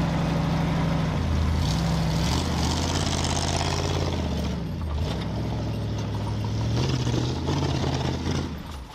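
1979 Ford one-ton truck's engine revving as the truck pulls away across grass, its pitch stepping up and down several times. A hissing rush rises over it for a couple of seconds about two seconds in.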